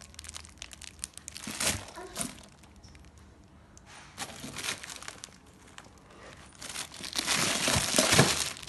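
Plastic bags crinkling and rustling as they are handled and shifted in a cooler of crushed ice. The crinkling comes in several bursts, and the longest, loudest one is near the end.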